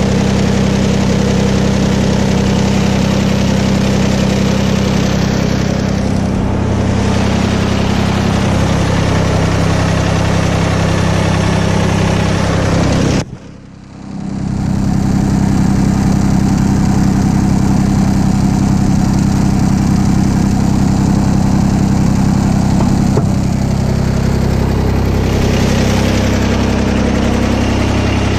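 Kubota BX1860 compact tractor's three-cylinder diesel engine running steadily at idle. About halfway through the sound drops out suddenly for about a second, then comes back.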